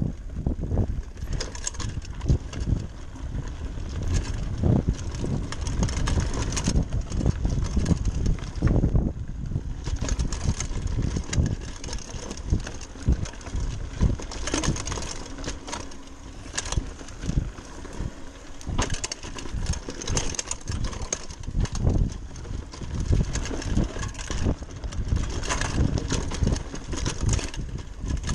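Giant Talon 3 29er hardtail mountain bike rolling fast over a dirt trail: continuous rattling and clatter from the bike and tyres jolting over roots and bumps, over a steady low rumble.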